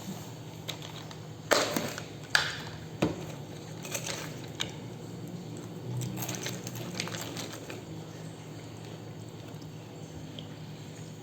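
Close-up mouth sounds of a person drinking and eating taro milk tea: a few sharp wet smacks and sips in the first three seconds, then quieter small mouth noises over a steady low hum.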